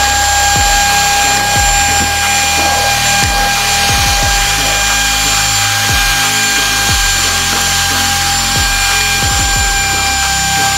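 Handheld vacuum cleaner running steadily, its motor giving a constant high-pitched whine over a rush of air.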